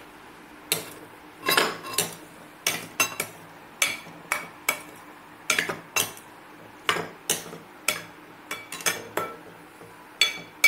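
A spoon mixing a chopped vegetable and sprout salad in a glass bowl, clinking against the glass in irregular taps, about two a second.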